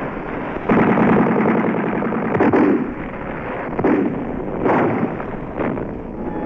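Battle sound effects on a 1969 film soundtrack: about five explosion-like blasts and gunfire bursts in a row, the first lasting about a second.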